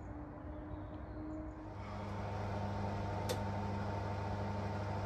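A steady machine hum that starts up about a second and a half in and holds, with a single click partway through.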